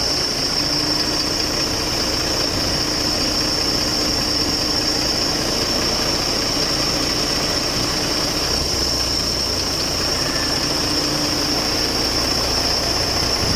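Crane truck engine running steadily while its boom hoists a pole-mount transformer, with a steady high-pitched whine over it and a faint hum that drops out partway through.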